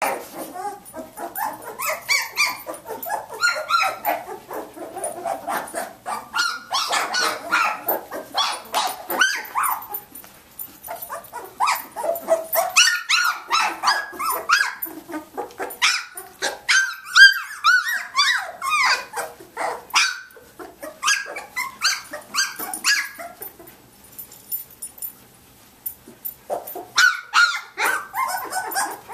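A litter of 19-day-old Samoyed puppies crying and yipping, many short high-pitched calls overlapping one another, easing off briefly a few seconds before the end and then resuming.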